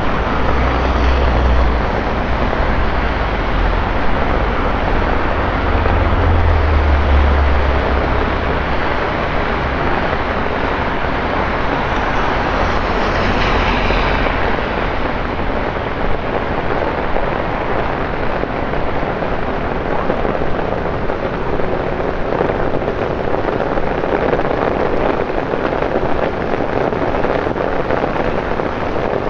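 Heavy rain pouring down on a city street and wet pavement, a loud steady hiss. A low rumble runs under it for the first several seconds, and there is a brief swell about thirteen seconds in.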